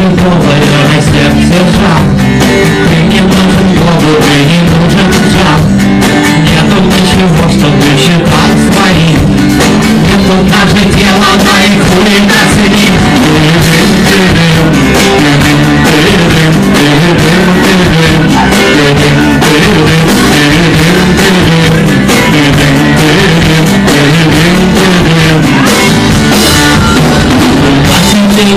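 Rock band playing live with guitars and drums. The recording is loud and crowded.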